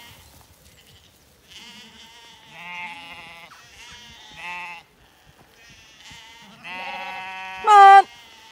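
Zwartbles sheep bleating: several wavering bleats, some overlapping, with the loudest a short, falling-pitched one near the end.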